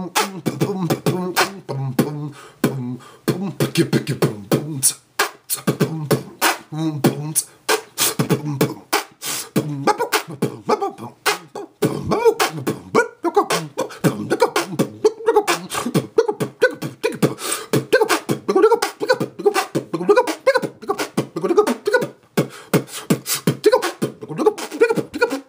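A man beatboxing solo: fast mouth-made drum sounds, sharp clicks and low thumps in an unbroken beat, with pitched vocal tones woven into the beat from about halfway through.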